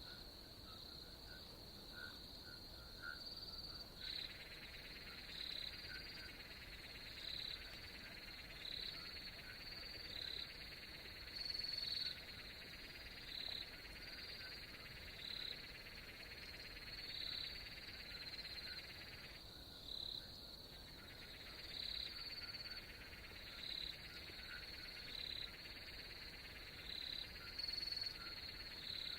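Faint outdoor chorus of frogs and insects: a steady high-pitched trill, with short calls repeating about once a second over it.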